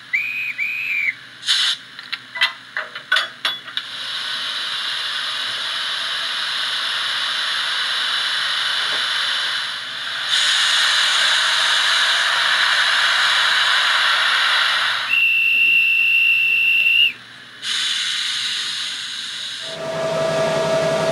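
Sound functions of an ESU LokSound V4 decoder in an HO-scale E94 model electric locomotive, played in turn: a short chime-like tone and a few clicks, then a long steady hiss, louder from about ten seconds in as the cooling fan runs. About fifteen seconds in a high steady whistle tone sounds for about two seconds, followed by more hiss of compressed air being released.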